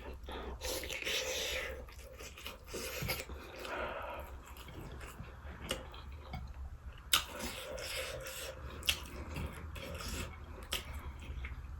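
A person chewing food with wet mouth sounds, broken by scattered short sharp clicks.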